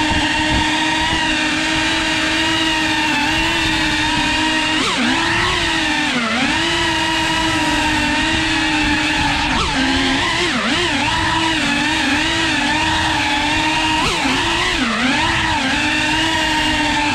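FPV drone's electric motors and propellers whining steadily. The pitch dips and springs back several times, most often in the second half, as the throttle is eased and opened again.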